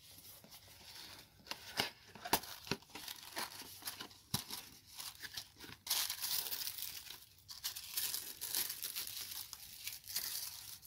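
A small cardboard box being opened by hand, its flaps clicking and scraping with a few sharp snaps, then tissue paper rustling and crinkling as it is unfolded from around the contents, dense and continuous from about halfway through.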